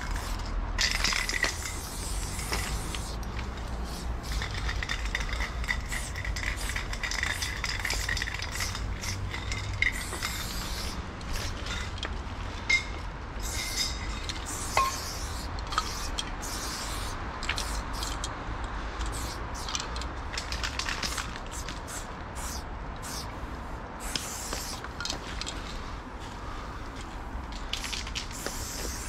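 Loop Colors aerosol spray paint can spraying in repeated on-and-off hisses of varying length as lines are painted onto a stone wall.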